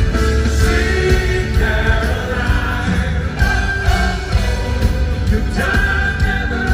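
A live rock band playing, with electric guitars, bass guitar and drums, and lead and backing vocals singing.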